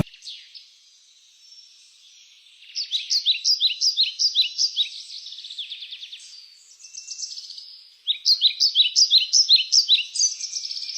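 Bird song: high chirping in two runs of quick, repeated falling notes, about three a second, with a short lull between them.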